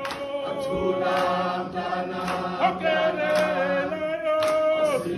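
A man leading a slow chanted song, with several other voices singing along on long held notes.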